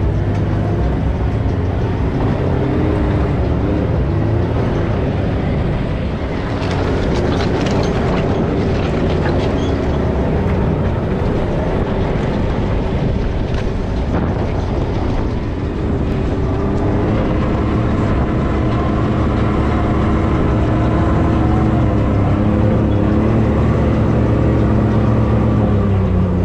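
Can-Am Maverick X3 side-by-side's engine running steadily as it drives along an off-road trail, its pitch wandering up and down with the throttle. A run of sharp clicks and knocks comes about six to ten seconds in.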